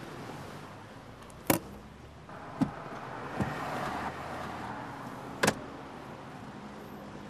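Steady car cabin noise, broken by a few sharp clicks. The two loudest come about a second and a half in and again some four seconds later.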